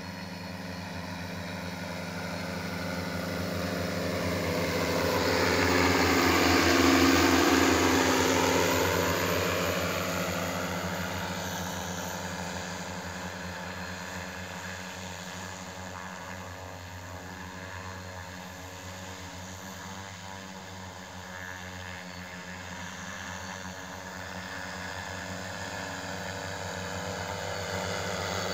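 Multirotor crop-spraying drone's propellers buzzing steadily in flight. It grows louder to a peak as it passes close about seven seconds in, fades away, then grows louder again near the end as it returns.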